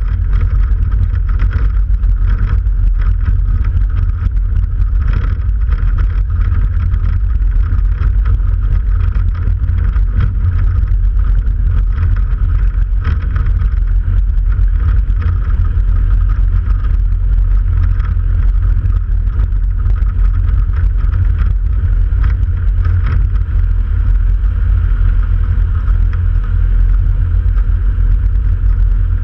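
Jabiru light aircraft engine running steadily on the ground, propeller turning, with a heavy low rumble from the propeller wash buffeting the microphone.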